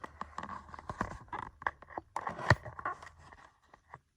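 Handling noises on a workbench: scattered rustles and small clicks as objects are moved, with one sharper knock about two and a half seconds in.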